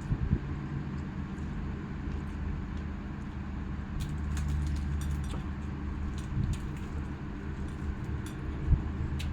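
A steady low mechanical hum. Light clinks of cutlery against a plate start about four seconds in, with a couple of soft knocks.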